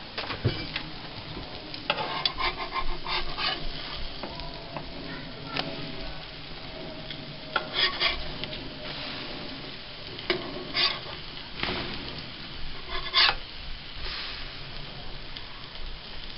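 Pancakes sizzling on a stovetop griddle while a metal spatula is slid under them and flips them, giving repeated short scrapes and taps against the griddle over a steady frying hiss.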